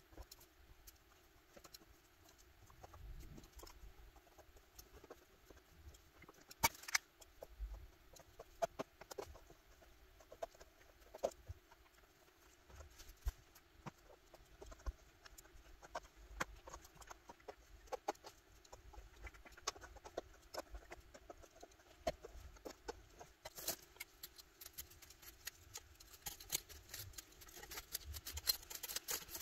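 Faint scratching and ticking of a soldering-iron hot-knife tip drawn along the edges of a stencil, melting through satin fabric laid on a glass sheet. The clicks grow denser near the end, as the cut fabric and stencil are handled and peeled apart.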